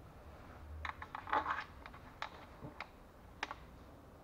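Light metallic clicks and taps of a socket tool and bolts as the CVT oil strainer's mounting bolts are fitted and turned in. There is a quick cluster about a second in, then a few single clicks.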